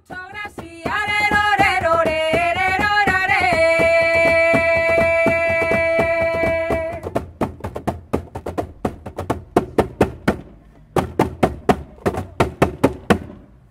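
Traditional folk music: a sung note is held for several seconds over a steady beat of hand percussion. The percussion then carries on alone, pauses briefly and stops just before the end.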